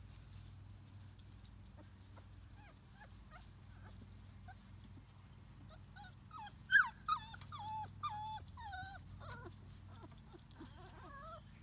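Four-week-old Labrador Retriever puppies whimpering: a run of short high whines, each falling in pitch. They are loudest and come close together a little past halfway, then thin out.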